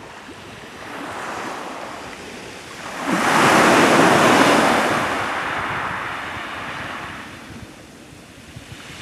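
Sea waves breaking on a beach: a wave swells about three seconds in, peaks and slowly washes back down, with some wind on the microphone.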